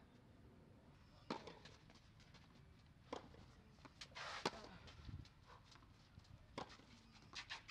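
Tennis rally: a ball struck by rackets four times, about two seconds apart, each hit a sharp pop, the loudest about four and a half seconds in. Just before that hit, shoes scuff on the clay as the player runs to the ball.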